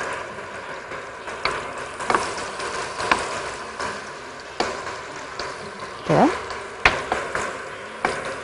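Butter melting in hot oil in a pot, sizzling, while a wooden spoon stirs it and knocks against the pot about six times. A short rising note sounds about six seconds in.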